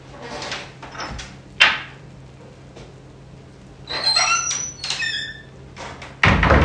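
Squeaks and clicks of a door being handled: a sharp click, then a run of high, sliding squeaks about four seconds in, and a loud knock near the end.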